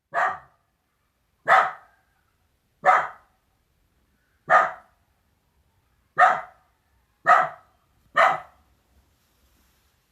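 A dog barking seven times, single barks spaced about a second or so apart.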